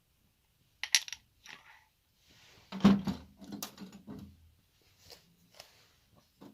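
Metal winch parts clinking and knocking as they are handled and set down: a series of sharp clicks and knocks, the loudest about three seconds in with a short low ring.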